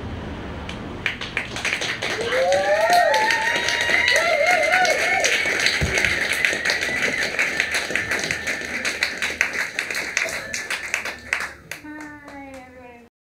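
A small audience applauding, with a few voices calling out early in the clapping, which thins out toward the end. A voice is heard briefly just before the sound cuts off abruptly.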